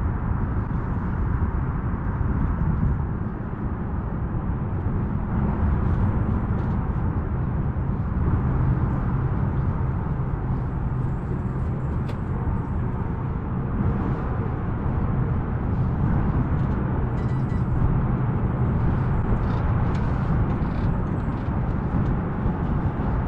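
Steady low rumble of wind on the microphone on the deck of a sailboat under way.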